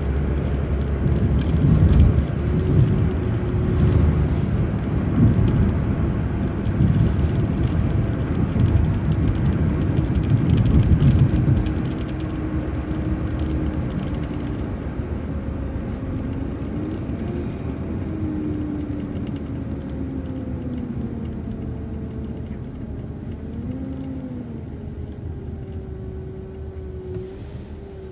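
City transit bus driving, heard from on board: engine and road rumble, heavy for the first dozen seconds and then easing off, with a faint whine that slides up and down in pitch.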